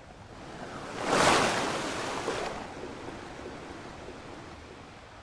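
Whoosh sound effect for an animated logo: a swell of rushing noise that surges about a second in, then fades away slowly.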